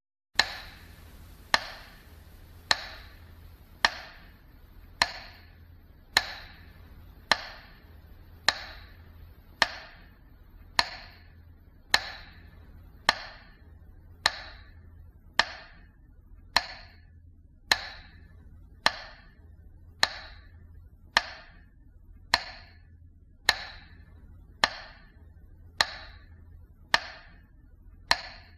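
A sharp percussive knock repeated evenly about once a second, each strike ringing briefly, over a faint low hum.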